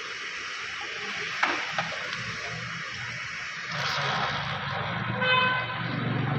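Honda CG 125's single-cylinder four-stroke engine running under a steady hiss. Two short clicks come about a second and a half in, the sound grows louder from about four seconds, and a brief pitched tone sounds near the end.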